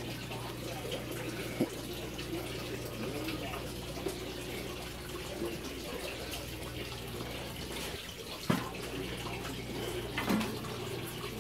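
Water trickling and splashing steadily in an aquaponics system, over a low steady hum, with a few soft knocks, the sharpest about two-thirds of the way through.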